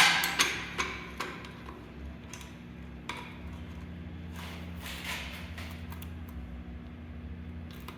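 A sharp snap right at the start, most likely a manual fire alarm pull station tripping as it is pulled for testing, fading over about a second, with a few lighter clicks after. A steady low hum follows.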